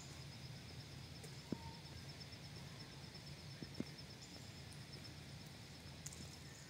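Faint outdoor ambience: a steady low rumble under a high, rapidly pulsing chirp, with a couple of soft clicks.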